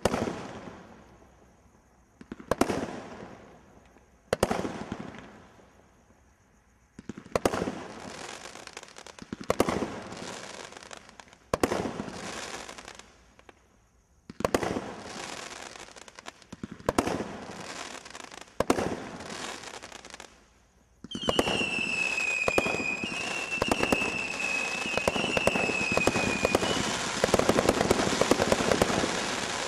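Brothers Pyrotechnics Fanfare 42-shot combination roman candle firing. About nine single shots come a couple of seconds apart, each followed by a crackling tail. About two-thirds of the way in it breaks into a rapid, continuous volley of dense crackling, with a high whistle that falls slightly in pitch over several seconds.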